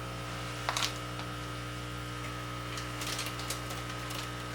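Steady electrical hum with a thin high whine above it, broken by a few faint brief rustles about a second in and again around three seconds in.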